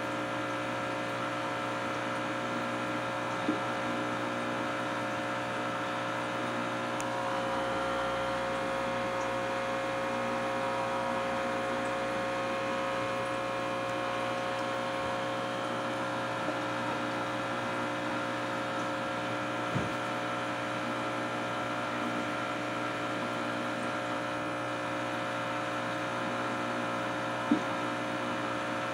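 Aquarium pump humming steadily, with a few light taps.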